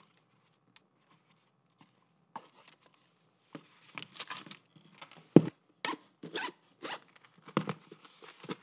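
Zipper on a small zippered carrying case, pulled in a run of short strokes, after a few faint ticks of items being set into the case.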